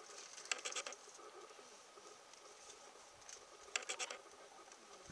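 Two short bouts of quick, scratchy rustling, about three seconds apart, over a faint background hiss.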